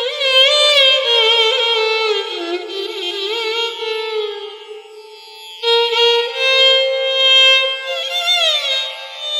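Carnatic-style instrumental melody on one bright, sustained melodic instrument, with gliding, bending ornaments between notes. The line fades down about four to five seconds in, then returns sharply near six seconds.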